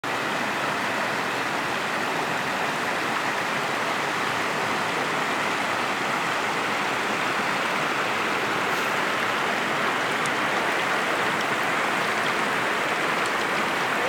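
Partly iced-over mountain river rushing over a shallow rocky bed and past shelves of ice: a steady, even rush of running water.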